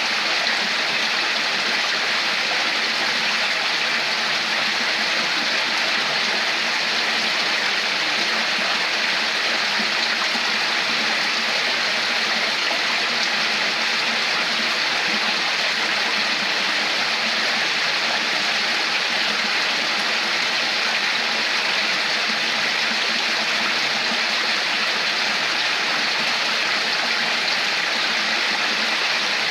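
Running water flowing steadily, a stream's continuous rush and babble.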